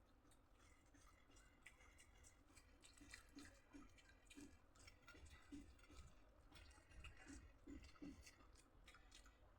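Faint chewing of food, with small crackly crunches and soft thumps coming in clusters, busiest in the middle.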